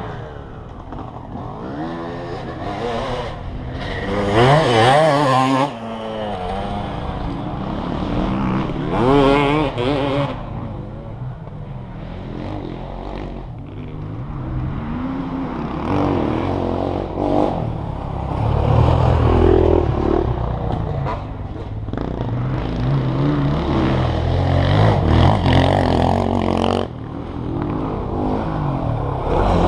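Engines of off-road vehicles running on a dirt track out of sight, revving up and down through the gears with a steady low rumble underneath, loudest about four seconds in, again around nine seconds, and near the end.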